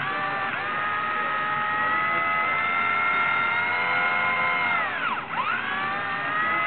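Blade mCP X micro helicopter's electric motors and spinning rotor giving a steady high whine. About five seconds in the pitch falls sharply and comes straight back up, a brief drop in motor speed.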